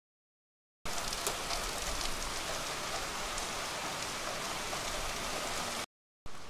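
Heavy rain pouring onto wet pavement, a steady hiss that starts abruptly about a second in. It cuts off suddenly shortly before the end, then comes back quieter.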